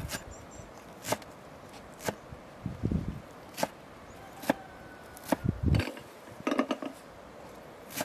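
A large kitchen knife chops through a pile of fresh greens (herbs such as cilantro and fenugreek) onto a cutting board, in sharp strokes roughly once a second at an uneven pace. A couple of dull low thumps fall between the strokes.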